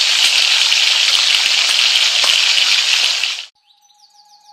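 Hot oil sizzling and crackling steadily, as in deep frying, with small pops throughout; it cuts off abruptly about three and a half seconds in. Faint chirpy notes and a steady tone of music follow near the end.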